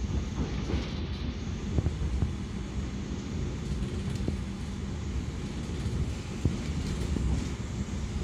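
Passenger train running on the rails: a steady low rumble with a few sharp clicks.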